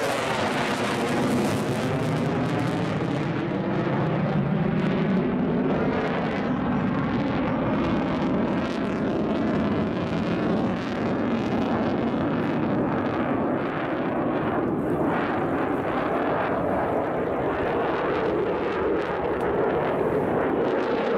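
F-15 fighter's twin turbofan engines, a loud steady jet roar as the aircraft flies its display overhead. The tone sweeps and shifts as the jet moves across the sky.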